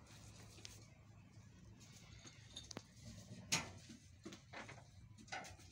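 Faint, scattered knocks and scuffs of a sheep's hooves shifting on a concrete floor, with one sharper click about three and a half seconds in, over a low steady hum.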